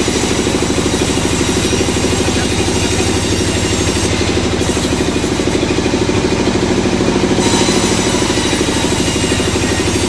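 An engine idling steadily with a fast, even chug.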